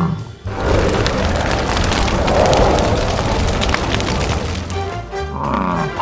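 A loud, rough roar sound effect lasting about four seconds over background music, followed near the end by a hen's cluck.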